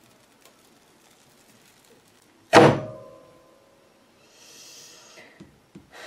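Multi-wire soap cutter pulled down through a loaf of cold-process soap: one loud thunk about two and a half seconds in as the wooden frame comes down, with a brief ringing after it. A soft rustle and a couple of light knocks follow near the end.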